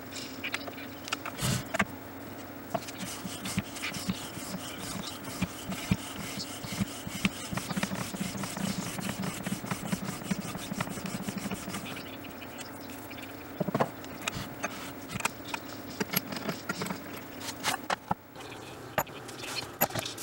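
Bookbinder's plough being worked back and forth along a clamped stack of paper, its blade shaving the edge in a long run of quick scraping strokes. A few separate knocks near the end.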